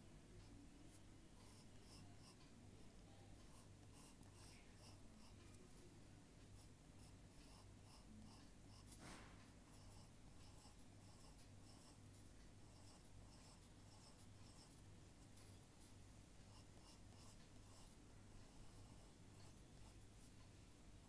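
Faint scratching of a drawing tool on paper in many short strokes, with one longer, louder stroke about nine seconds in.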